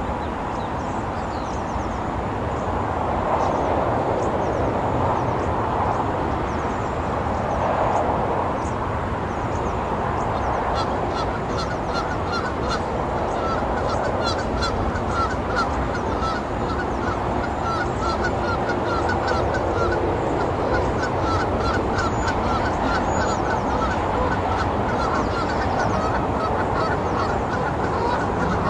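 Steady noise of cars driving by on Highway 17. From about ten seconds in, birds give a fast, continuous run of short repeated calls over it.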